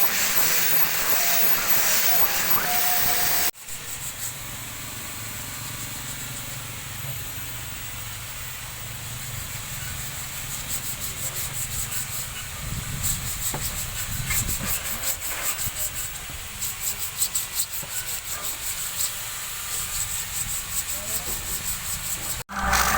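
A steady hiss for the first few seconds, then, after a cut, sandpaper rubbing by hand in quick repeated strokes, which get louder and more frequent from about halfway through.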